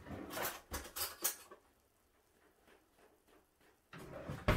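Scratchy rustling and clatter as a kitchen drawer is opened and searched for a spoon. There are two short spells of it, with a sharp knock near the end.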